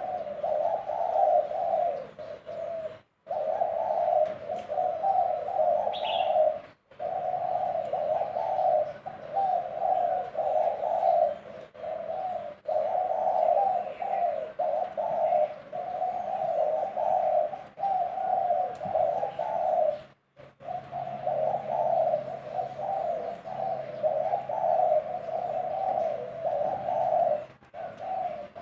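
Male spotted dove cooing over and over in rapid low phrases, with a few sudden brief dropouts.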